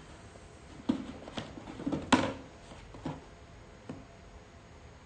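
A few sharp clicks and knocks, the loudest about two seconds in, from a Lynx-R1 VR headset's plastic shell and strap being handled and lifted out of its foam packaging tray.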